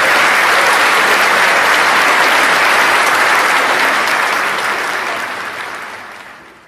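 Large audience applauding steadily, the applause fading out over the last two seconds.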